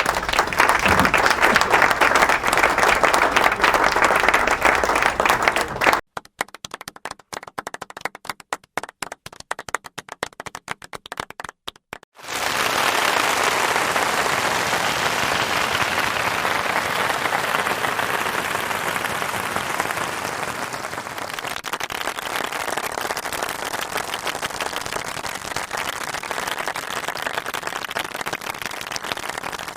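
Applause in three stretches. First a crowd applauding densely for about six seconds. Then a few hands clapping in separate, distinct claps for about six seconds. Then a large crowd applauding steadily for the rest, easing off slightly toward the end.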